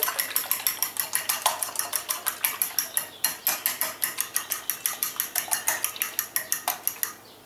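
Metal fork whisking beaten eggs in a ceramic bowl, the tines clicking rapidly against the bowl several times a second. The clicking stops just before the end.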